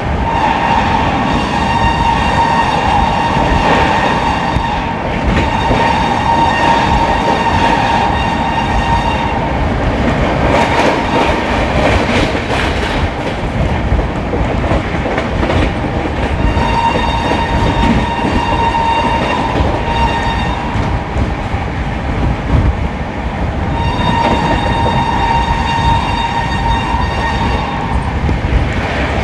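Electric locomotive horn sounding three long, steady honks: the first is already sounding and holds until about a third of the way in, and two shorter ones of about three to four seconds come later. Underneath is the steady rumble and clickety-clack of the express train running fast on the rails.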